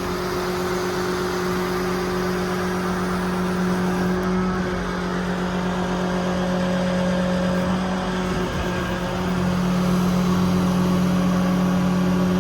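Paccar PX9 diesel engine of a Kenworth T370 running with the hydraulic system driving the service crane, a steady engine-and-pump hum. The hum briefly dips and shifts about eight and a half seconds in, then settles again.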